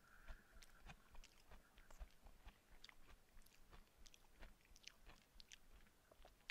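Faint close-up chewing: soft wet clicks and smacks of a mouth working on food, a few each second.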